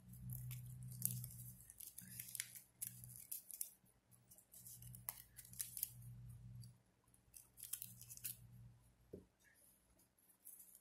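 Satin ribbon rustling and crinkling in the hands as it is folded, pulled and threaded into a ribbon flower: faint, short, scratchy rustles at irregular moments.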